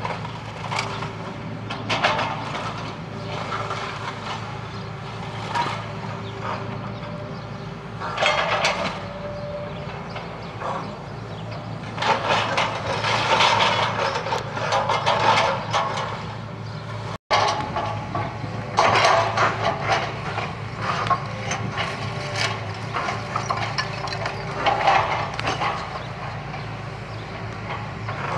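Hitachi demolition excavator's diesel engine running steadily, with irregular bursts of crunching and clattering as its grab breaks up and drops timber and rubble.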